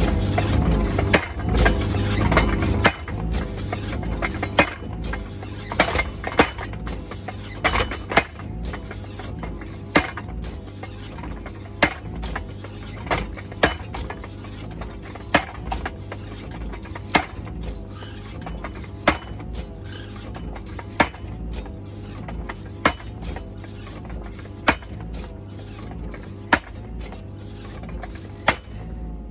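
Hydraulic post driver on a mini excavator hammering a 150 mm square oak post into the ground, with a sharp blow about every two seconds over the steady running of the excavator's engine and hydraulics. The engine is louder for the first three seconds.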